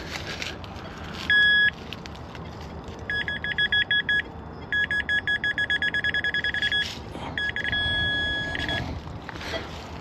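Metal detector beeping while homing in on a buried target: one short steady beep, then a run of pulsed beeps that grow quicker, then a held tone near the end as it sits over the target. Soft rustling of digging beneath.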